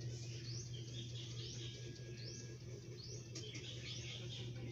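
A bird calling over and over in short rising chirps, about two a second, over a steady low hum.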